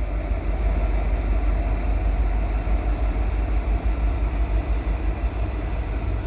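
Diesel freight locomotives and cars of a slow-moving CN freight train passing, a steady low rumble with no horn.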